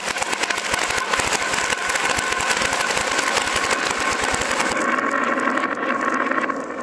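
Dozens of glass marbles rolling down carved wooden zigzag grooves: a continuous rolling rumble with a dense clatter of clicks as the marbles knock against the wood and each other. The brightest clicking thins out about five seconds in.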